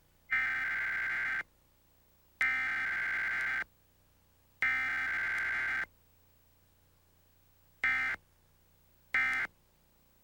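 Emergency Alert System SAME data header: three harsh, buzzy bursts of digital tones, each about a second long and about a second apart, then two much shorter bursts near the end. It is the coded header that opens a Required Weekly Test broadcast.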